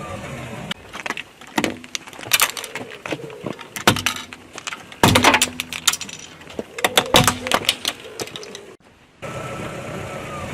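Eyeglasses cracking and crunching under a car tyre: irregular sharp snaps and crackles in several clusters, over a car engine running steadily, with a brief drop in sound near the end.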